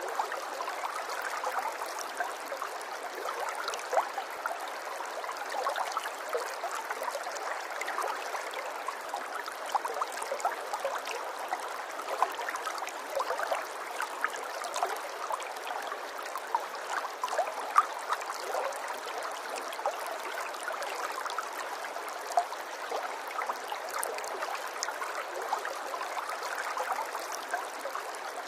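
Running water, trickling and gurgling steadily, with many small splashes and drips throughout.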